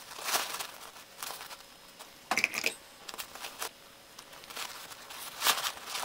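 Fabric and thermal lining rustling and crinkling in short bursts as the pouch is handled and folded by hand, with a few light clicks as plastic sewing clips are fitted to the edge.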